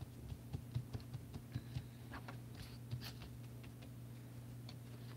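Faint, scattered light clicks and taps of small things being handled, most of them in the first three seconds, over a steady low hum.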